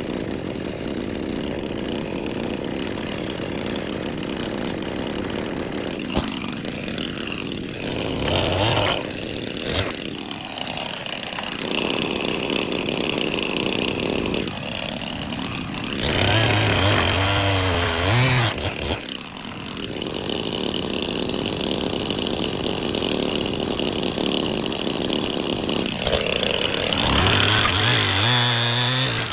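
Portable band sawmill running on its small gas engine, with three louder stretches of a few seconds each as the blade cuts white oak stickers.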